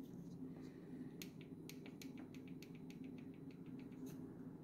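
A fast, even run of faint light clicks, about six a second, starting about a second in and stopping near the end, over a low steady hum.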